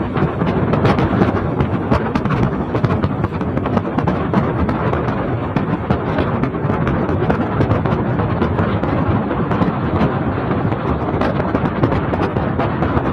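Wind buffeting the microphone of a phone held at an open car window at road speed, a steady low rumble with constant crackling, over the road noise of the moving car on a wet highway.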